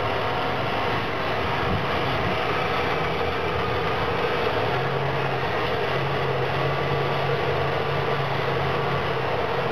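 Heavy diesel engines of a CAT 657E twin-engine wheel tractor-scraper running steadily as it drives away across a dirt hillside cut.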